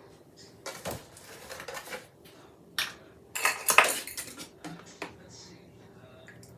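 A plastic measuring cup and a gallon milk jug being handled on a kitchen table: scattered light clicks and knocks, with a louder clatter about three and a half seconds in.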